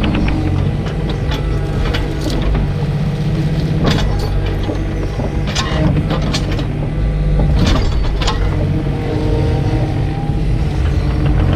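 Takeuchi TB125 mini excavator's diesel engine running steadily under hydraulic load, with several sharp knocks and clanks as the bucket and hydraulic thumb grip a log and lift it.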